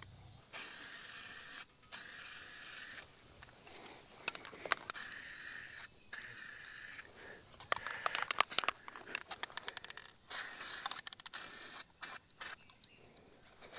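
Aerosol can of orange marking paint spraying in a series of short hisses, each a second or two long. Between sprays there are bursts of quick clicking, the mixing ball rattling as the can is shaken.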